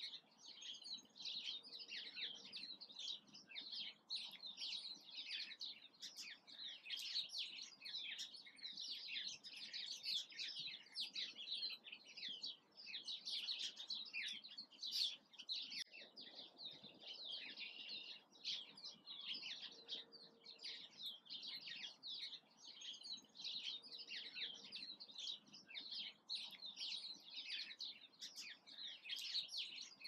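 Small songbirds chirping and twittering in a dense, busy chorus of quick high notes.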